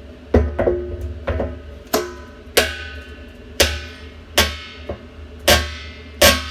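About ten irregular sharp knocks, each with a short ring, as the float valve's mounting nut is tightened further against the tank wall.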